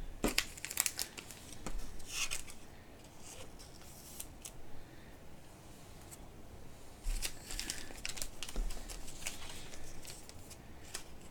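Trading cards and their packaging being handled: dry swishes, crinkles and light clicks in a few separate bursts.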